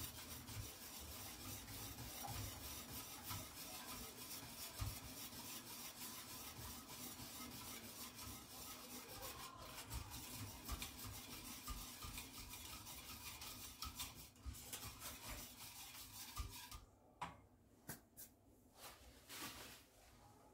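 Wire whisk scraping quickly and continuously around a stainless steel pot, stirring a thin mixture of sugar, flour and starch so it won't form lumps. About three-quarters of the way through the stirring thins out and turns quieter, leaving a few separate scrapes and knocks.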